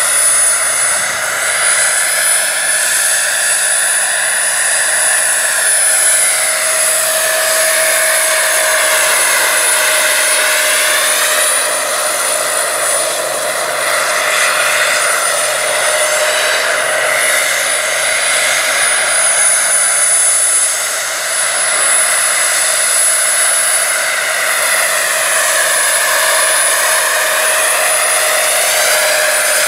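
Small gas turbine of a large-scale RC Bell 412 model helicopter running in flight. It gives a steady, high-pitched turbine whine, and the sound swells and shifts in pitch colour as the helicopter moves around.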